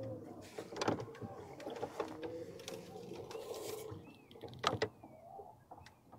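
MinnKota Ulterra electric trolling motor whining steadily, fading out about two-thirds of the way through. Two sharp knocks stand out, about a second in and near the end, and a bird gives a few short chirps shortly before the second knock.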